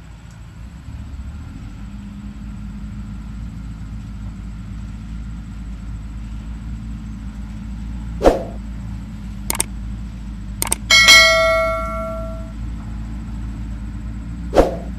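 Heavy diesel earthmoving machinery running steadily, with a few sharp metal knocks and one loud clang about eleven seconds in that rings on for over a second, steel striking steel.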